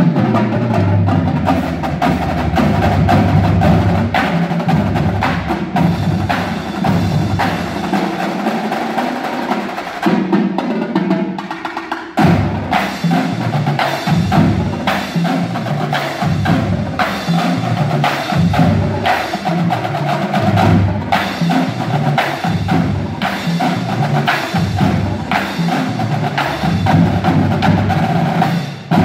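Marching drumline playing: snare drums, tenor drums and tuned bass drums, with rapid sharp stick strikes over pitched bass drum notes. About ten seconds in the bass drums drop out briefly, and the full line comes back in with a hit just after twelve seconds.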